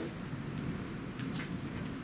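Rain falling steadily, with a couple of sharp drips close to the microphone.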